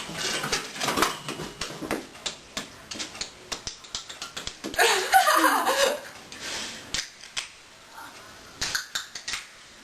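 Rapid clicking and crackling handling noises, with a brief vocal sound sliding down in pitch about five seconds in and a few more clicks near the end.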